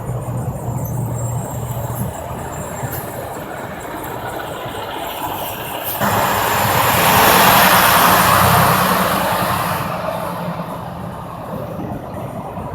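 Interstate highway traffic with a low engine hum from trucks. About six seconds in, the tyre and engine noise of a passing vehicle, likely a heavy truck, rises suddenly, peaks, and fades over about four seconds.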